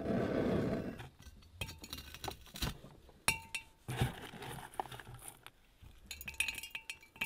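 Frozen blueberries dropped a few at a time into a one-gallon glass jug, clicking and clinking against the glass, some clinks leaving a short ringing tone. A brief burst of rushing noise opens it.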